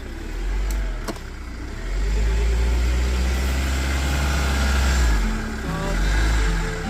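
Diesel Kia Sorento engine revving in surges under load as it crawls over an off-road obstacle, with a deep rumble that swells three times. Two short knocks come about a second in.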